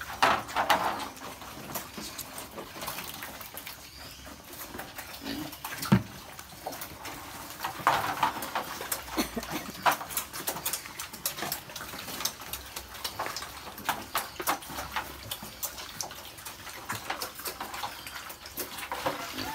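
Piglets feeding from a rubber pan of wet mash: wet slurping and chomping with many quick clicks and knocks, and one sharper knock about six seconds in.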